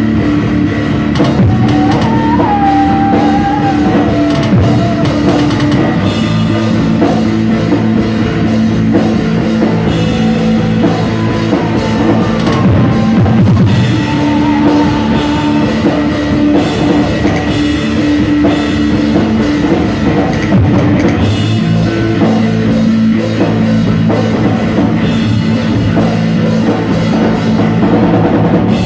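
Rock band playing, with drum kit and guitar, loud and continuous.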